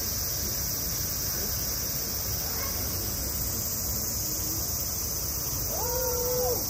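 Steady, unbroken high-pitched drone of a summer cicada chorus, with a short pitched call rising and falling near the end.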